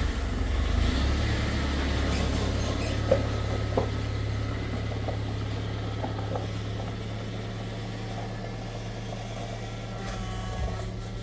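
Toyota Hilux Surf engine idling steadily with its power steering pump running while the system is bled of air. Two light knocks come about three and four seconds in. The owner finds the pump working hard and suspects a too-tight belt tensioner or air still in the lines.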